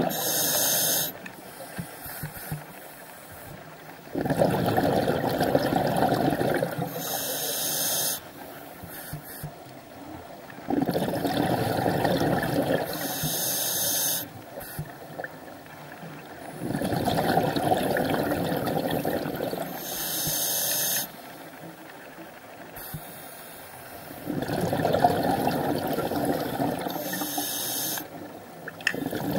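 Scuba diver breathing underwater through a regulator: a short hiss of the demand valve alternating with a few seconds of bubbling exhaust, repeating steadily about every six to seven seconds.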